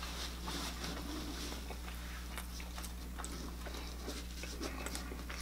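Close-miked chewing of a mouthful of dessert: small wet clicks and crackles of mouth and food, over a steady low electrical hum.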